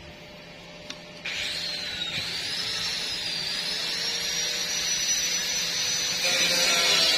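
Electric power tool starting up about a second in, then running steadily with a high whine that slowly shifts in pitch.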